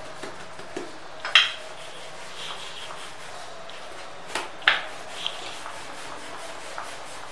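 Wooden rolling pin rolling paratha dough flat on a silicone mat, a soft rubbing, broken by three sharp clicks: one about a second and a half in and two close together past the middle.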